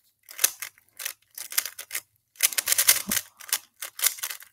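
Plastic Rubik's Cube (3x3) being turned quickly by hand, its layers clacking in short bursts of rapid turns with brief pauses between, executing a U-perm algorithm.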